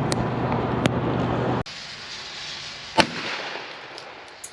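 Steady car running noise cuts off abruptly about one and a half seconds in. About three seconds in comes a single shotgun blast with a short echo, fired at a hornet nest and hitting it.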